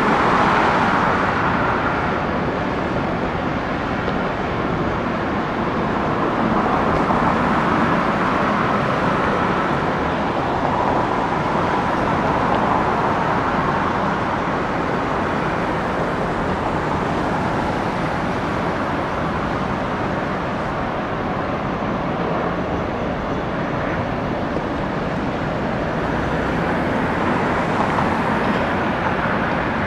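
Jet airliner engine noise: a steady, even roar without distinct tones that holds its level throughout.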